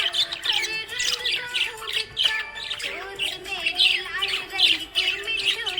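Budgerigars chirping and squawking in a quick string of short, high chirps, about three a second, over background music with held notes.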